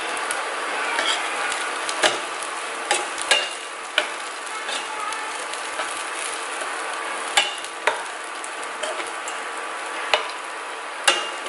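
Diced tofu sizzling in a nonstick frying pan while a metal spatula stirs it. A sharp click or scrape of metal on the pan comes every second or two over the steady sizzle.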